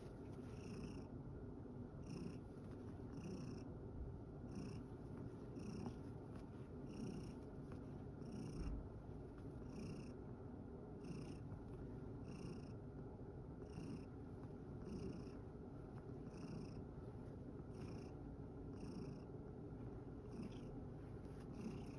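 Domestic cat purring steadily while resting, in a regular rhythm of about one pulse a second.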